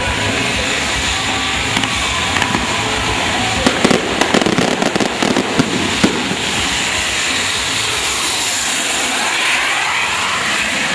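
Barco de fogo, a boat-shaped firework, hissing steadily as its spark jets burn, with a rapid cluster of sharp bangs and crackles between about three and a half and six seconds in.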